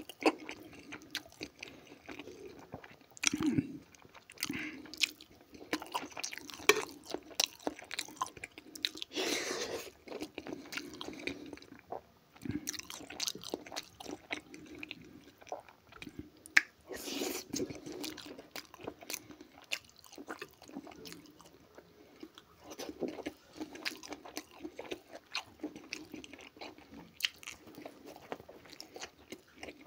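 Close-miked chewing and biting of fried potatoes, grilled meat and pizza, with many sharp clicks of metal cutlery against a ceramic plate.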